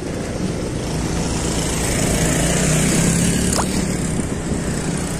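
Motorcycle engine running while riding along a road, under steady wind and road noise. The engine grows louder for a second or so in the middle.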